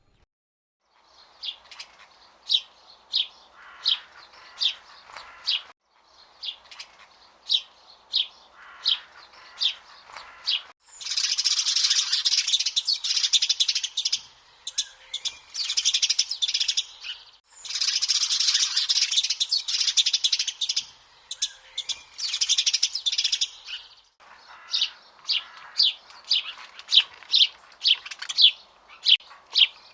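Small birds chirping: a series of short, high chirps about two a second, then a dense chorus of many birds twittering at once, then quick repeated chirps again, with abrupt breaks between the stretches.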